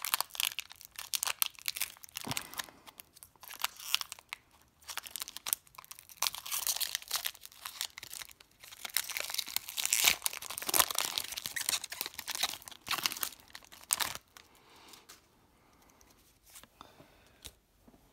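Foil wrapper of a Pokémon trading card game booster pack crinkling and tearing as it is pulled open by hand, in a long run of crackling rustles. The crinkling dies down after about fourteen seconds, leaving only faint rustles and clicks.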